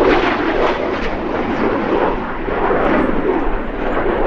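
Jet noise from BAE Hawk T1 aerobatic jets flying past, a loud, steady rushing sound that swells and eases slightly.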